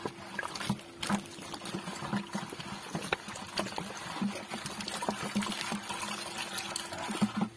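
Water poured from a plastic bottle into a bucket, splashing and trickling, with scattered knocks and clicks and a faint steady low hum. The water is being added to mix an expansive demolition powder.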